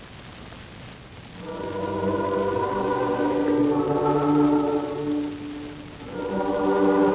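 Mixed choir singing a Christmas piece on a 1948 shellac record, in the thin, narrow sound of an old disc. After a quiet pause of about a second and a half the choir comes in on long held chords, fades briefly near six seconds, then sings on.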